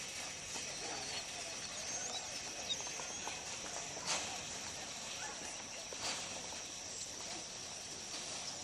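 Outdoor ambience: a steady high hum with faint chirps, broken by a few sharp clicks, the loudest about four seconds in.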